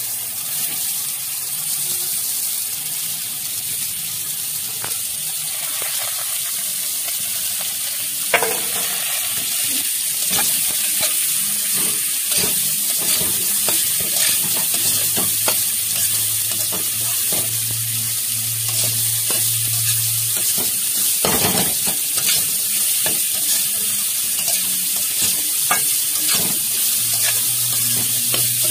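Chopped cauliflower frying in hot oil in a kadai: a steady sizzle, with a spatula scraping and clinking against the pan as it is stirred, sharper knocks about 8 and 21 seconds in.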